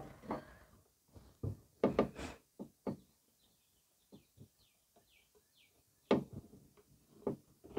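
Scattered clicks and knocks from a pump oil can and a plastic lawn mower wheel being handled while the wheel's axle is oiled. A run of faint, short high chirps, each falling in pitch, comes midway.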